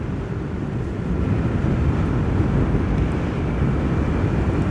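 Motorcycle riding along, its engine and the wind and road noise blending into a steady low rumble, heard from a helmet-mounted microphone; it grows slightly louder about a second in.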